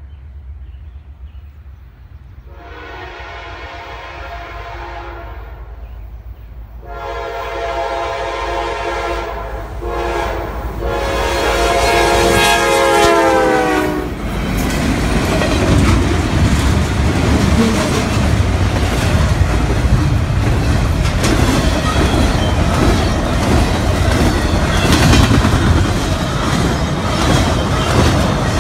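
Norfolk Southern Dash 9 locomotive's Nathan K5LA five-chime horn blowing the grade-crossing signal of long, long, short, long. The pitch drops as the lead unit passes. The locomotives and then the intermodal well cars follow, with loud engine rumble and wheels clattering over the rail joints.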